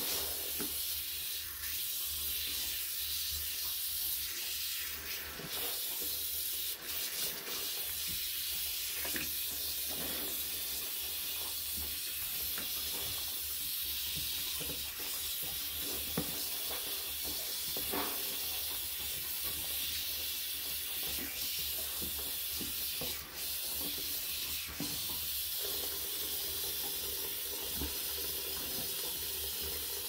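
Steady bright hiss with a low hum underneath and a few faint clicks scattered through it.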